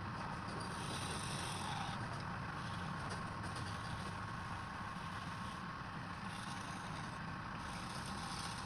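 Wood lathe running steadily, a turning tool cutting the spinning wood, the high shaving hiss coming and going in passes.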